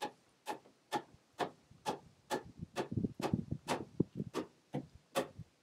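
Sharp, evenly spaced ticks, about two a second, with duller wooden knocks and thuds in the middle as pine floorboards are pressed and shifted by hand into dovetailed joists.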